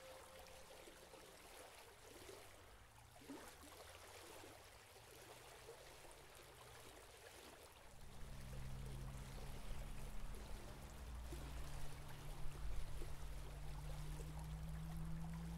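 Faint, steady hiss of a flowing river. About halfway through, a low held drone from the film score comes in and grows louder.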